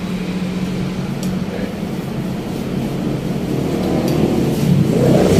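A motor vehicle engine running steadily, growing louder over the second half as it draws closer.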